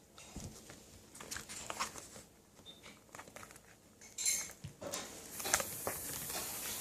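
Hands handling small plastic Play-Doh tubs and stickers: scattered light clicks and rustles, then a longer crinkling rustle from about five seconds in.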